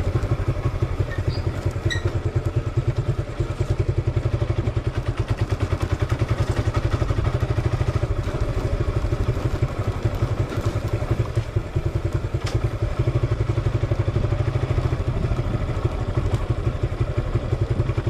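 Suzuki Gixxer motorcycle's single-cylinder engine running at low revs, a steady, even, low exhaust beat as the bike rolls slowly.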